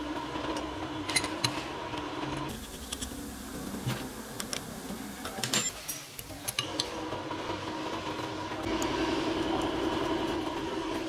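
A few sharp metal clicks and taps as small steel bolts and nuts are handled and fitted into the jaws of an adjustable wrench, over a steady machine hum that drops out for a few seconds in the middle.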